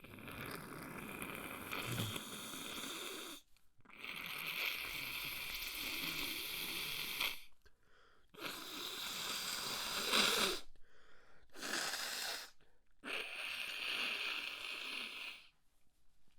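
A person blowing a congested, snotty nose hard, about five long blows of one to three seconds each with short pauses between.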